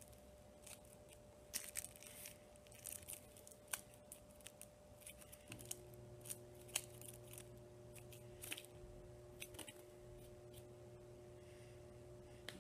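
Faint clicks and light taps of a pair of chopsticks knocking together as they are opened and closed in the hand, with small rustles of fabric. A faint steady hum, joined by a lower hum about five and a half seconds in.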